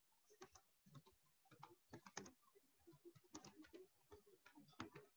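Faint typing on a computer keyboard: irregular runs of quick keystrokes.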